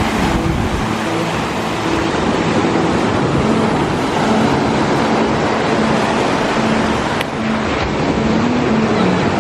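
A loud, steady rush of ocean surf and wind on the microphone at the shore, with background music playing low notes underneath.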